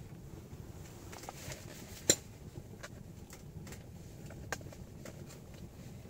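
Wood fire crackling in a tent stove: scattered sharp ticks and pops over a low steady hiss, with one loud pop about two seconds in and another, smaller one near the middle.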